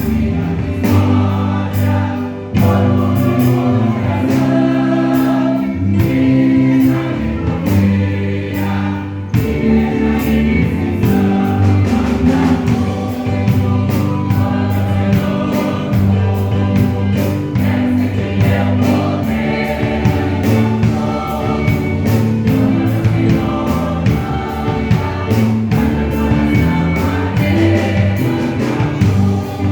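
Church choir singing a gospel song over instrumental accompaniment with a steady beat.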